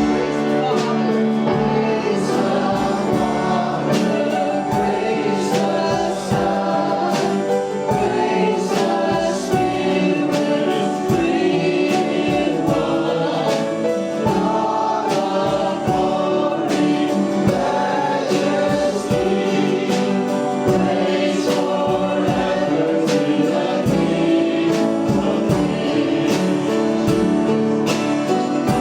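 Congregational worship song: a choir or group of voices singing with a band accompanying, steady and full throughout.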